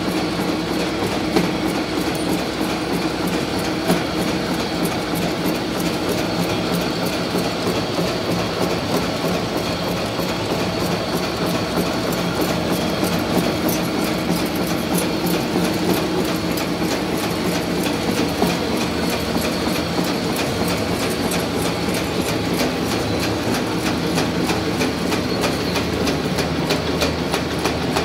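Pillow pack cut-and-wrap machine for chew bars running: a fast, even mechanical clatter over a steady hum.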